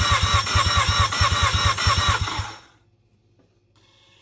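Mazda RX-8 Renesis 13B two-rotor rotary engine turning over on its starter motor without firing, spark and fuel disabled for a compression test. It makes rapid, even pulses that stop about two and a half seconds in.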